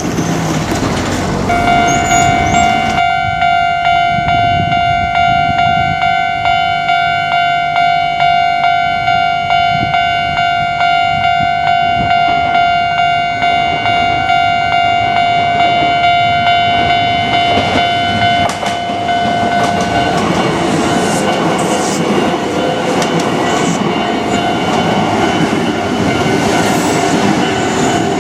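Japanese level-crossing warning bell, starting about a second and a half in and ringing in a steady repeating ding. From about twenty seconds in, a Kintetsu Nagano Line train passes over the crossing, its wheels clacking over the rail joints beneath the bell.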